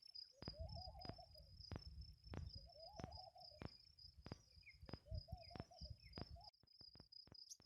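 Faint outdoor ambience: an insect's steady high pulsing trill, low hooting calls from a bird that come and go, and soft regular footfalls of someone walking on sand.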